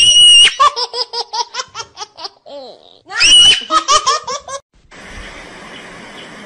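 High-pitched human laughter in two hysterical bouts, each starting with a shrill squeal and breaking into rapid ha-ha pulses. About five seconds in it stops, and a steady hiss of outdoor background noise follows.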